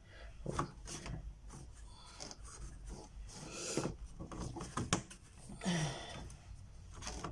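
Mat board and artwork rubbing and scraping against a picture frame as gloved hands slide and press them into place, with a sharp click about five seconds in.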